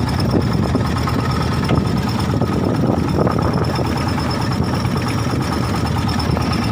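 Boat engine running steadily, with a constant high-pitched whine above the engine noise.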